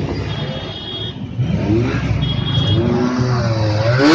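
A motorcycle engine revving with rising pitch as it accelerates toward the listener, then passing close by at the very end with a loud rush and a sharp drop in pitch.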